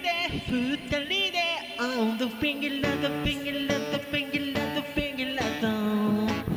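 Background music: a song with a sung Japanese vocal melody over instrumental backing.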